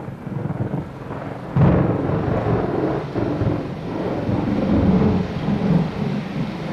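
Thunderstorm: rolling thunder over rain, with a sudden loud thunderclap about a second and a half in that rumbles on.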